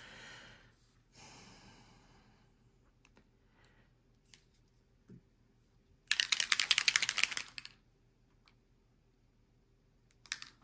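Small bottle of alcohol ink shaken hard, rattling rapidly for about a second and a half, about six seconds in. Faint handling noises come before and after.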